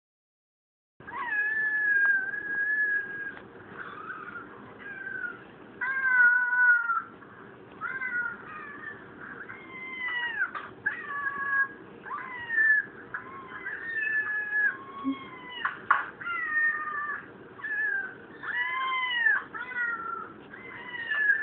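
Cats meowing over and over on a video played through laptop speakers: a string of meows, some drawn out over a second, others rising and falling, starting about a second in. A single sharp click comes about three-quarters of the way through.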